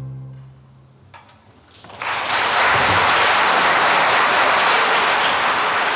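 The orchestra's final held chord fades away in the first second. After a brief hush, a concert-hall audience bursts into applause about two seconds in and keeps clapping steadily.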